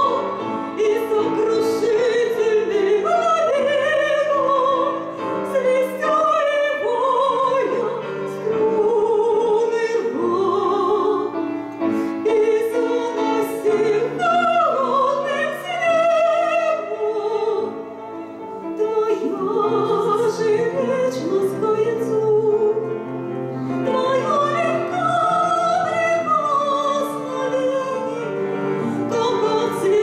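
Woman singing a Russian romance in a classical, operatic voice with vibrato, accompanied by grand piano.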